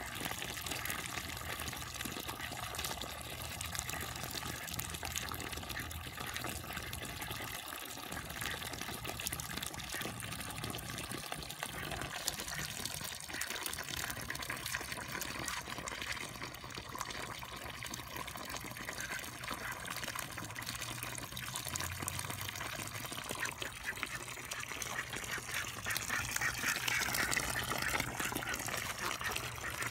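A thin stream of water pouring and splashing steadily into a muddy puddle, getting louder near the end.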